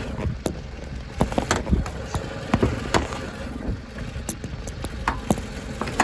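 Car engine idling, with a string of sharp clicks and knocks as the bonnet is unlatched and raised.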